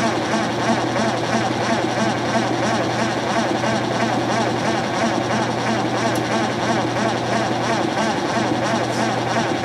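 Vintage KitchenAid direct-drive top-load washer spinning: a steady motor hum under the constant whir of the spinning basket and load.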